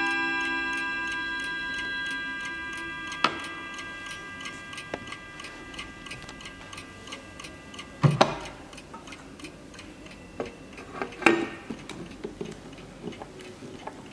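Vintage Hermle mantel clock: the last chime strikes on its gong rods ring on and fade away over the first few seconds, while the movement ticks steadily throughout. Louder knocks come about eight seconds in and again about eleven seconds in, as the wooden case is handled and turned.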